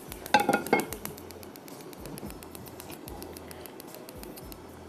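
Metal cooking pans clanking as they are handled on a gas stove, a few knocks with a short ringing about half a second in, then light clicks.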